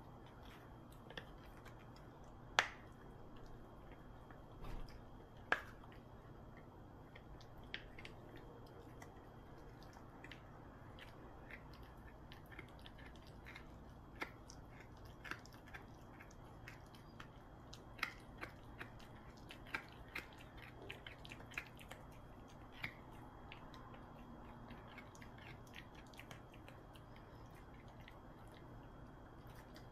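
Poodle gnawing on a hard dog chew: scattered sharp clicks and cracks of teeth on the chew, the loudest about two and a half and five and a half seconds in, with a busier run of clicks from about eighteen to twenty-three seconds.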